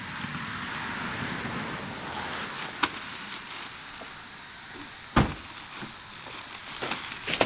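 An SUV's rear liftgate being pulled shut: a single heavy thump about five seconds in, over a steady outdoor hiss. A sharp click comes before it, and a few lighter clicks near the end.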